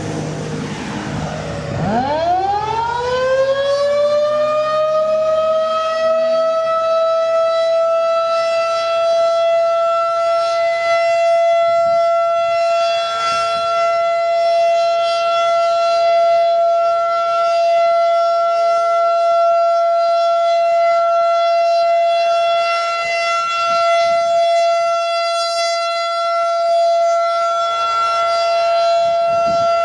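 Federal Signal 2001 outdoor warning siren winding up, its pitch rising over the first few seconds, then holding a loud steady tone during a siren test.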